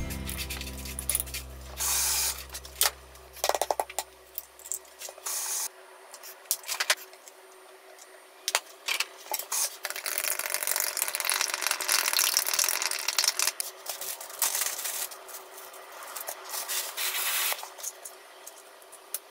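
Wooden chopsticks stirring batter in a ceramic dish, then beating eggs fast in a glass bowl, a dense run of quick clicks and scraping against the glass.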